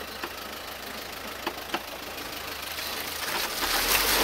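Car driving slowly along a rutted, muddy dirt track: the engine runs steadily, with scattered sharp clicks and knocks from the tyres and body over the ruts, and the noise grows louder near the end.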